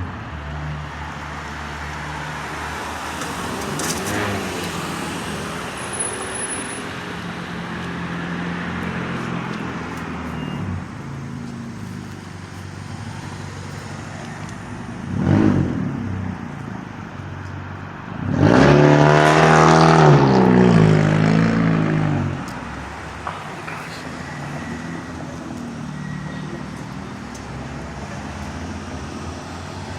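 Road traffic: a steady engine hum with vehicles passing, one briefly about fifteen seconds in and a louder one from about eighteen to twenty-two seconds, its engine pitch falling as it goes by.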